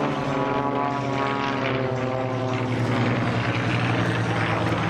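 Piston engines of a formation of propeller aerobatic planes droning overhead. The engine note falls slightly in pitch over the first couple of seconds as they pass.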